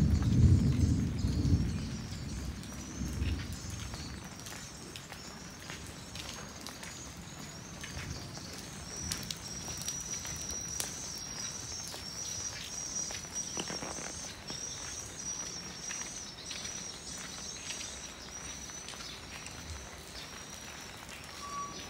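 Outdoor village ambience after rain: birds chirping high and steadily, with the walker's footsteps on the wet lane. A low rumble fills the first couple of seconds, then fades.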